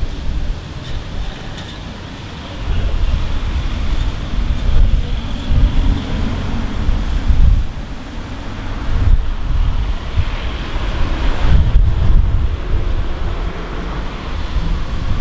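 Storm wind buffeting the microphone: a heavy low rumble that surges and drops in gusts, growing louder about two and a half seconds in.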